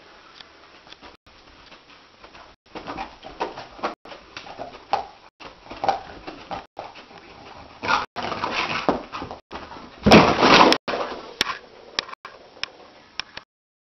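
A dog whimpering and yipping in its sleep while its legs paddle and scrabble on carpet, then a loud scuffle about ten seconds in as it scrambles to its feet.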